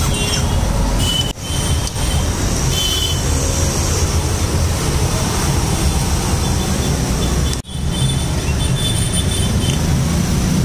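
Steady roadside traffic noise with a low rumble, cutting out briefly twice.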